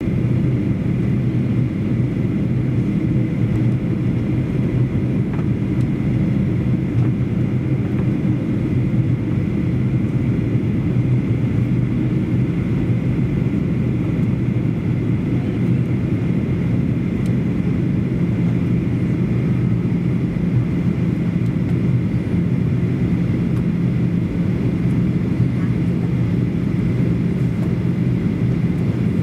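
Cabin noise inside a Boeing 737-800 airliner on approach: the steady drone of the jet engines and rushing air, with a low hum and a faint high whine running through it.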